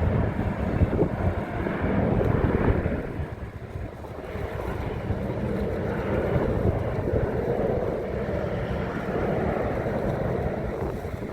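Airliner engine noise rumbling at a distance, louder for the first few seconds and then easing to a steadier level, with wind buffeting the phone's microphone.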